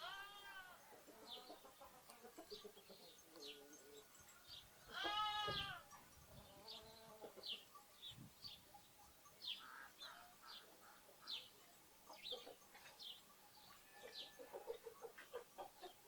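Lambs bleating, with the loudest bleat about five seconds in and fainter ones at the start and just after, over sparrows chirping throughout.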